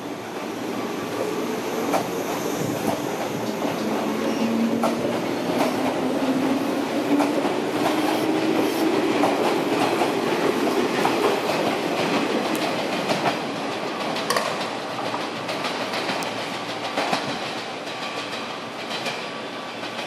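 JR 185 series electric multiple unit pulling away and passing close by. Its traction motors whine upward in pitch as it gathers speed, and its wheels clack over rail joints. The sound swells in the middle and eases off near the end as the last cars leave.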